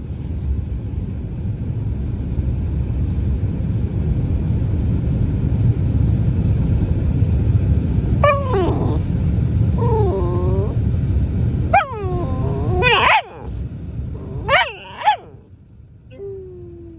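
Rottweiler puppy grumbling. A steady low rumble gives way, about halfway through, to several short whiny calls that fall in pitch, with a few more near the end.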